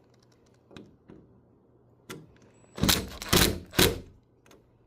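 Drill driving the door handle's screws tight in three quick bursts about three seconds in, after a couple of light clicks.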